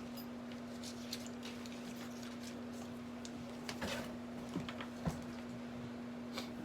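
Quiet handling noises: scattered light clicks and taps, a few together about four seconds in and a sharper knock about five seconds in, over a steady low hum.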